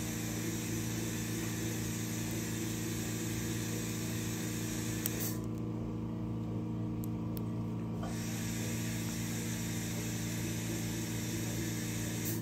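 Steady electrical hum with a hiss over it; the hiss stops for nearly three seconds about five seconds in, then comes back.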